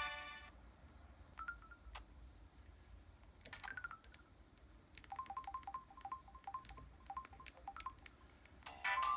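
Samsung Anycall SCH-W200 feature phone playing its built-in sound effects through its small speaker. A ringtone melody cuts off, then come a few short electronic blips and a falling chirp, and then a quick run of repeated short beeps, about four a second, for some three seconds. A new melody starts near the end.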